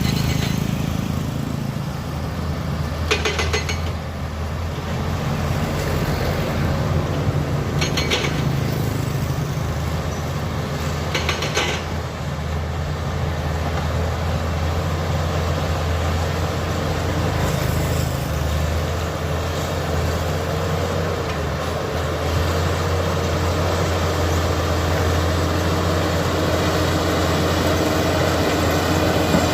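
Komatsu D85E-SS bulldozer's diesel engine running steadily with a deep hum. Three short metallic clatters cut through it, about 3, 8 and 11 seconds in.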